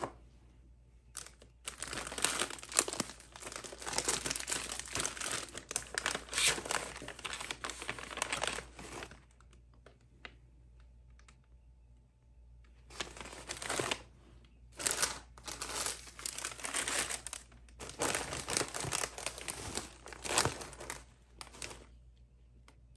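Plastic snack bags and pouches crinkling and rustling as they are handled and packed into a plastic basket. The rustling comes in two long stretches, with a pause of about four seconds in the middle.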